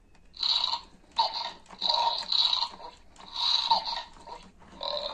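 Play-Doh Dino Crew Crunchin' T-Rex toy making its chomping sound effects as its head is pressed down to chew the dough: a run of about six short, crunchy bursts with brief pauses between.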